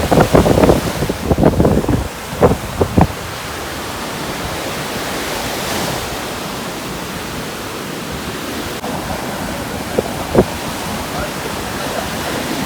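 Ocean surf and strong wind blowing across the microphone, a steady rushing noise. Short louder bursts in the first three seconds and one about ten seconds in.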